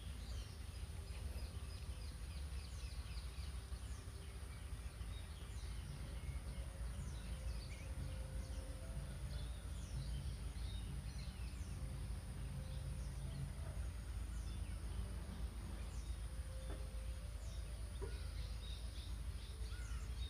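Quiet background of a steady low hum, with frequent short, high, falling chirps of birds calling throughout.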